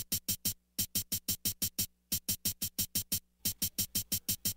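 Drum-machine hi-hat ticking in a quick rhythm, about six a second in short phrases with brief gaps, over a faint steady low hum: the sparse opening of a hip hop beat before the full drums come in.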